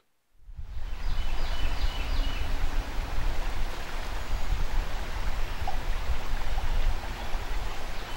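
River ambience fading in: a steady rush of flowing water with a heavy low rumble underneath. A few faint high chirps come about two seconds in.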